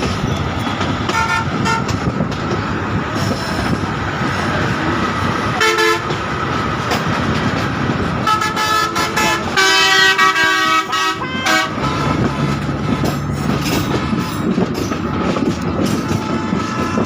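Steady running noise of a moving train, with several short horn toots and one longer, louder horn blast about ten seconds in.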